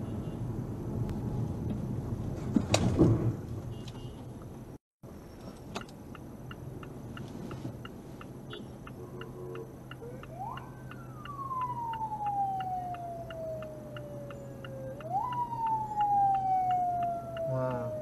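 Dashcam traffic and road noise with a sharp bang about three seconds in. After a brief dropout, edited-in effects take over: a steady ticking like a clock, and a siren-like tone that jumps up and slides slowly down, twice.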